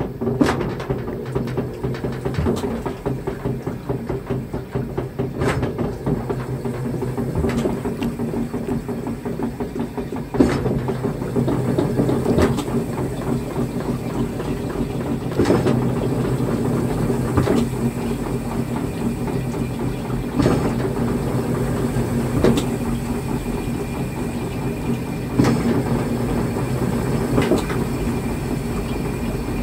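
Washing machine running a wash of clothes: a steady motor hum with water churning, and a short knock about every two to three seconds.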